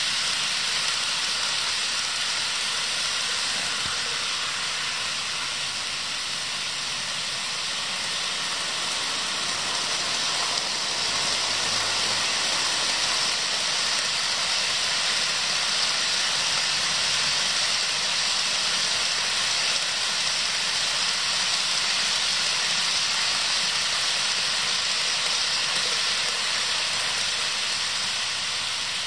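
HO scale model trains running on sectional track: a steady high-pitched whir of the locomotives' electric motors and the wheels rolling on the rails.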